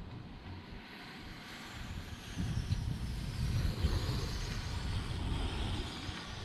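Wind buffeting the microphone, with a road bike rolling downhill past it: the hiss of its tyres swells about halfway through, then fades as it rides away.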